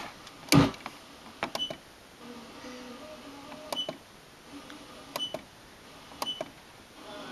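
Digital AM radio tuner being stepped through the band: a click and a short high beep with each step, about every one to two seconds, between brief stretches of static and faint station audio. A louder click about half a second in.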